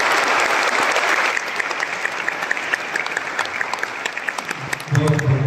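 Congregation applauding: dense clapping that thins after about a second and a half into scattered separate claps, dying away near the end.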